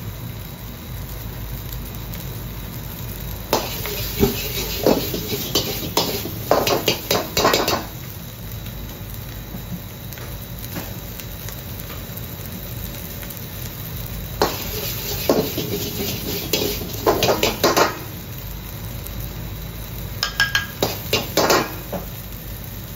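A gas wok burner runs with a steady low rush. Three bouts of a metal ladle scraping and knocking against an iron wok break in as egg fried rice is stir-fried: one a few seconds in, one midway, one near the end.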